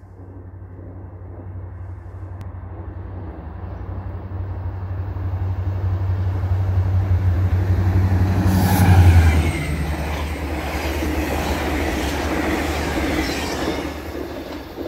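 A GO Transit MP40 diesel locomotive passes at about 125 km/h hauling a bilevel express train. The engine's low drone grows louder as it approaches, peaks and drops in pitch as the locomotive goes by about nine seconds in, then gives way to the rushing clatter of the coaches' wheels on the rails. The sound cuts off suddenly near the end.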